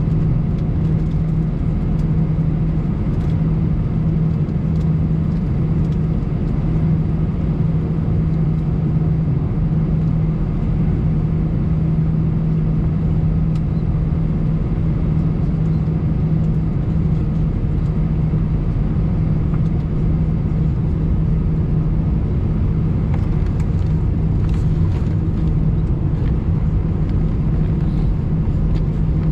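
Steady cabin noise inside an Airbus A320 on the ground: a constant low engine hum over a broad rumble, with a few faint ticks near the end.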